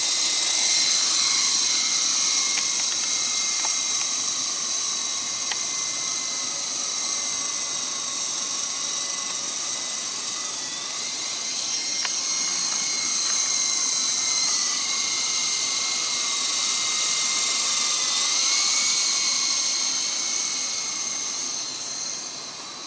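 Syma S37 RC helicopter's electric motors whining in flight, a steady high-pitched whine that wavers slightly in pitch and grows fainter near the end.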